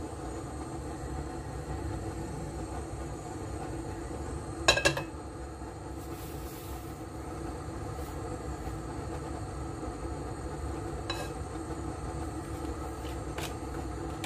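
Steady low rushing hum of a gas stove burner heating oil in a pot, with no sizzle yet. About five seconds in there is a sharp double clink as the metal pot is set back down on the burner grate, and a couple of lighter clicks follow later.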